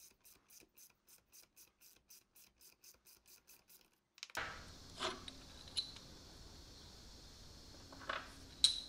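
Socket ratchet clicking steadily, about three clicks a second, while it turns a nut on a belt sander's motor armature shaft. After about four seconds there are a few light metal clinks.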